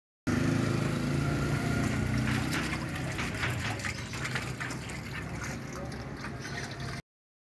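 An engine idling with a steady low hum, and a run of irregular clicks and light clatter from about two seconds in. The sound cuts in and cuts off abruptly.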